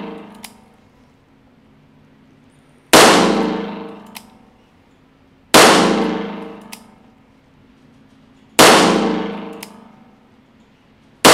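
Taurus 856 Defender .38 Special revolver firing four shots, about three seconds apart, the last right at the end. Each report rings out in the echo of an indoor range, and a light click follows about a second after each shot.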